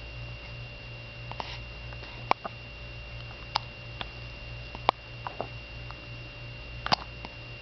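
Baby hiccuping: short, sharp hics every two seconds or so, some louder than others, over a steady low electrical hum and a faint high whine.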